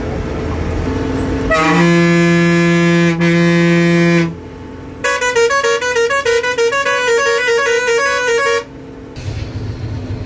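Vehicle horns at close range: a long steady blast of about two and a half seconds, then, about five seconds in, a musical horn playing a quick tune of alternating notes for about three and a half seconds. The bus's engine runs underneath before and after. The horns are sounded as the bus comes into a hairpin bend.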